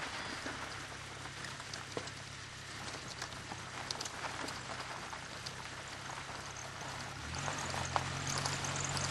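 Car engine running steadily while driving over a gravel dirt track, with scattered ticks and crunches from stones under the tyres; the engine note rises a little about seven seconds in as the car speeds up.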